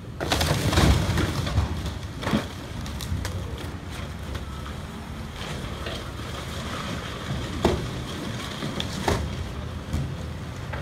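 Excavator bucket crushing and cracking a fiberglass underground fuel tank: a long loud crunch near the start, then several sharp cracks spread through the rest, over the excavator's diesel engine running steadily.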